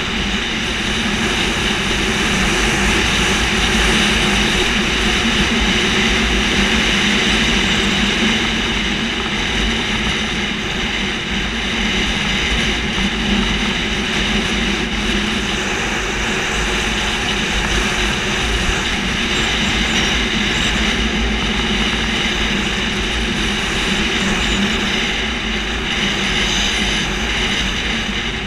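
Honda Tornado 250 dirt bike's single-cylinder four-stroke engine running at a steady cruising pace, with heavy wind rumble on the bike-mounted microphone.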